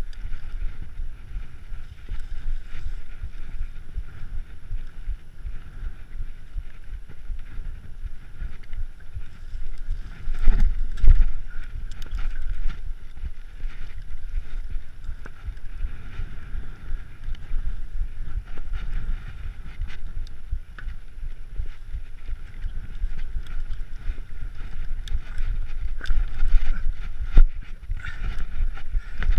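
Wind buffeting the microphone as a steady low rumble, with a few knocks and jolts about ten to twelve seconds in and again near the end.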